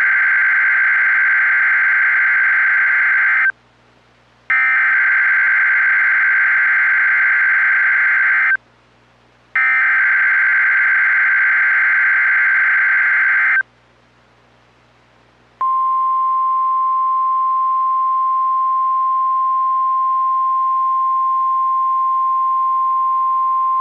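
Emergency Alert System activation on NOAA Weather Radio. Three bursts of the warbling digital SAME header, each about four seconds long with a second's gap between them, announce a new alert. About fifteen seconds in, the steady single-pitch warning alarm tone begins.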